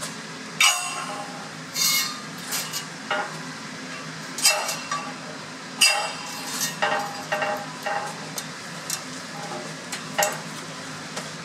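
A steel rule and a steel scriber clinking and scraping on steel plates while the weld axis is marked out: irregular light knocks and short scratches, over a steady low hum.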